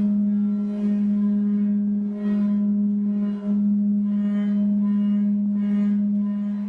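A loud, steady low pitched tone, held throughout, with higher overtones that swell and fade roughly once a second and brief dips in level.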